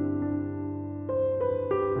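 Soft background music on a piano-like keyboard, held notes with new ones struck a little after a second in and again near the end.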